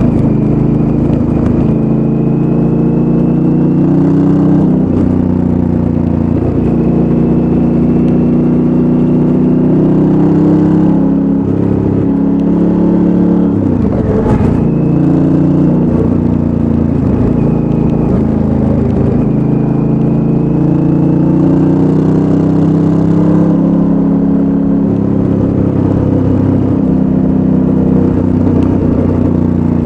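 2019 Honda Africa Twin's 998 cc parallel-twin engine through its stock exhaust, ridden along. The engine note rises and falls in steps with throttle and gear changes, with a brief drop about fourteen seconds in.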